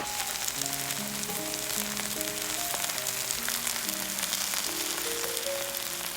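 Korean pancake batter (jang-tteok) frying in oil in a pan: a steady sizzle, full of small crackles. Soft background music plays gentle held notes underneath.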